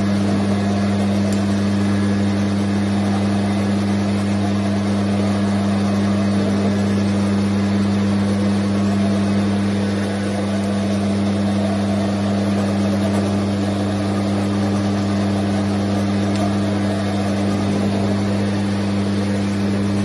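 Handheld electric polisher running steadily as its pad works a polished black marble wall, giving a steady low motor hum.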